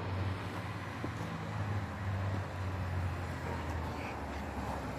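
Low, steady rumble of a motor vehicle running, with a few faint clicks.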